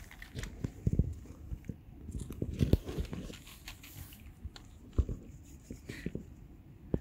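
Tabby cat crunching and chewing dry kibble in quick, irregular bites, with the loudest crunches about a second in, near three seconds in and at five seconds.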